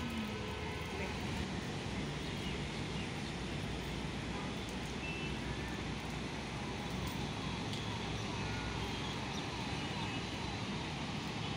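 Steady outdoor city ambience: distant road traffic as a low rumble under an even hiss, with a few faint short high tones now and then.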